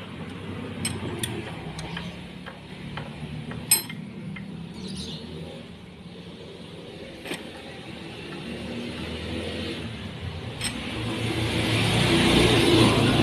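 Several light metallic clinks as a bearing and its hub are handled and set against the steel jaws of a bench vise. A motor vehicle's engine noise in the background grows louder near the end.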